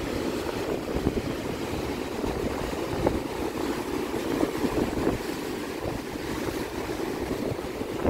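Wind buffeting the microphone: a steady, gusty rumble.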